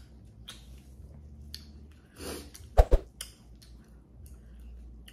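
Close-up eating sounds: a person chewing corn coated in seafood-boil sauce, with scattered wet mouth clicks and a soft breath. About three seconds in, two sharp low thumps close together are the loudest sounds.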